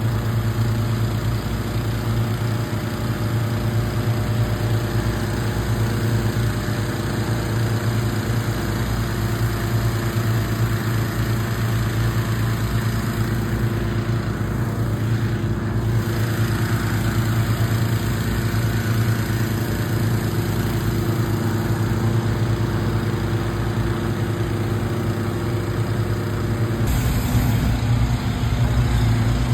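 A vehicle engine running with a steady hum, its tone shifting about 27 seconds in.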